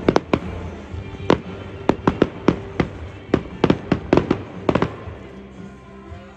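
Aerial fireworks bursting in a rapid, irregular string of sharp bangs, about fifteen of them, that stops about five seconds in.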